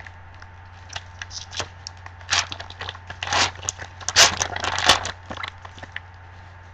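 Shiny foil wrapper of a football trading-card pack being torn open and crinkled by gloved hands: a run of irregular rustles and tears, loudest about four and five seconds in.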